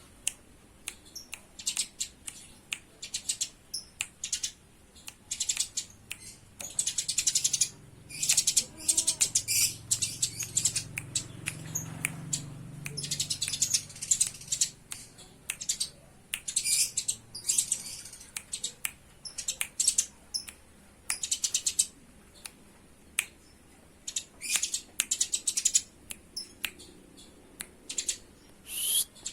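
Eurasian tree sparrows chirping in rapid, irregular clusters of short, sharp calls: the excited chatter of sparrows fighting.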